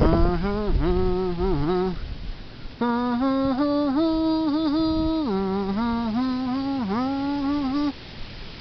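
A person humming a slow wordless tune in long held notes that step up and down in pitch, with a short break about two seconds in and another near the end.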